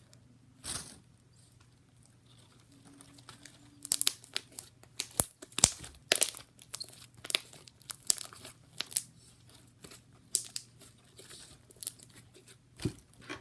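Jumbo fluffy slime with fake snow being squished and stretched by hand. After a few quiet seconds it gives a long run of irregular sharp crackles and pops.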